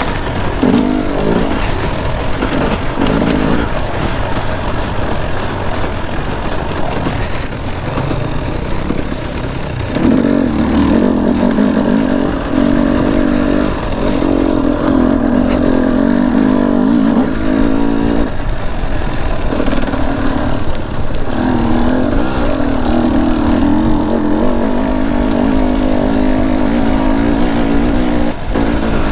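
Two-stroke dirt bike engine running hard on the throttle, its note rising and falling as the rider revs on and off, with a couple of brief lifts of the throttle.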